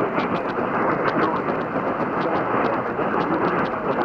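Radio reception static: a steady, band-limited hiss with scattered crackles running through it, typical of a noisy AM radio signal.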